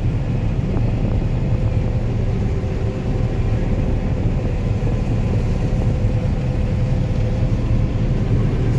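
Farm machine's engine running steadily under load: a continuous low rumble with a faint steady hum above it.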